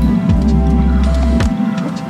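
Background music with deep bass notes that drop in pitch.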